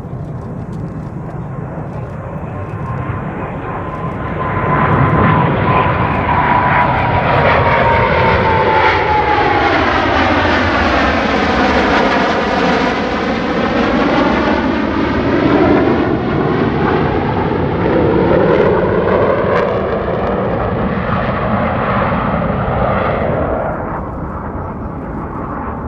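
Blue Angels F/A-18 Super Hornet jet flying past: the jet roar builds over a few seconds, a high whine drops in pitch as it passes, and a hollow sweeping tone swells and fades before the roar drops off near the end.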